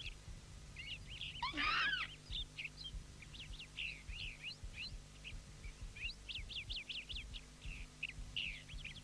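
Rapid high-pitched animal chirps and squeaks, with one louder, longer falling cry about one and a half seconds in, over a low steady hum.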